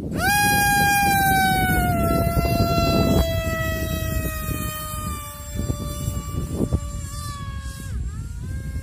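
Brushless electric motor of a foam RC plane (2217 2700kv on a 6x4 prop) spooling up to a loud, high whine as the plane is hand-launched, then sinking slowly in pitch as it climbs away. Near the end the whine dips briefly and comes back up.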